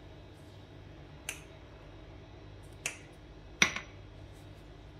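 Three sharp clicks of small metal tins being tapped and set down on a granite countertop, the last and loudest about three and a half seconds in, over a faint steady room hum.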